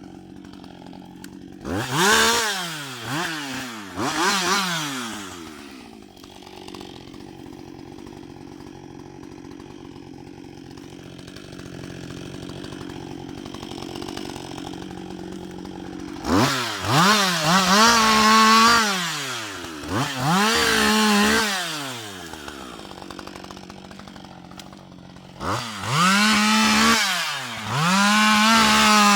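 Husqvarna 560 XP two-stroke chainsaw idling and revved up to full throttle again and again. Blips around two to four seconds in, back to idle, then longer bursts held at high revs with brief dips from about 16 s and again from about 25 s to the end.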